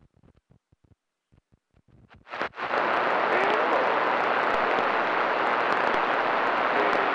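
CB radio receiver breaking squelch on channel 28: faint scattered crackles, then about two seconds in a loud, steady rush of static opens up and holds.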